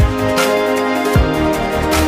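Background music with a steady beat: held synth chords over a kick drum.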